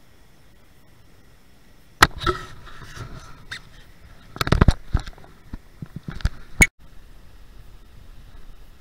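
A series of sharp knocks and clicks, irregular and in quick succession, over a faint steady hiss; they stop suddenly about two-thirds of the way through.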